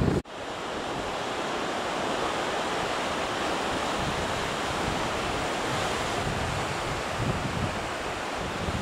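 Surf breaking on a rocky shore, a steady wash of sea noise, with wind gusting on the microphone now and then. The sound cuts out for an instant just after the start.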